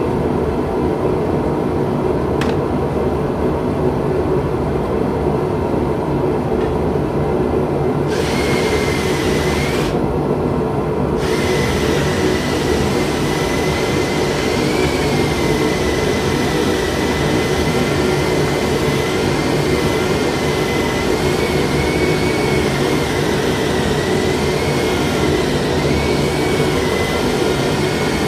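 Bladesmith's forge running with a steady roar. About eight seconds in, a thin, wavering high whine joins it, drops out briefly, then carries on.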